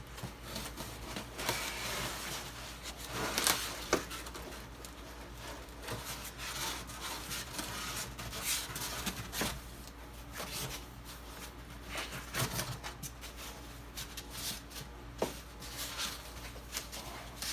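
Hands unwrapping packaging: irregular rustling, rubbing and tearing of plastic, tape and cardboard, with short clicks and scrapes throughout, over a faint steady low hum.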